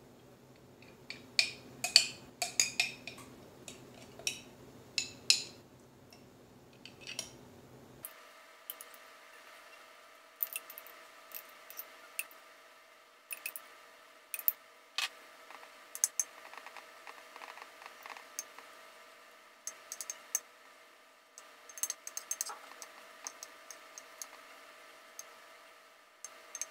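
Metal spoon clinking against a glass jar and tapping and scraping in a glass baking dish while thick soup is scooped out and spread, a run of sharp, irregular clinks. A faint steady hum comes in about eight seconds in.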